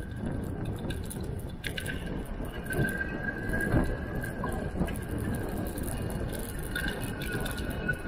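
Bicycle riding along a concrete path, heard from a bike-mounted camera: steady tyre and road rumble with wind on the microphone, a thin steady high whine over it, and a few short knocks.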